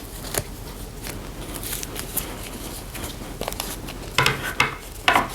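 Plastic fashion doll and its cloth dress being handled as the dress is pulled on: scattered small clicks and fabric rustling, a little louder about four and five seconds in.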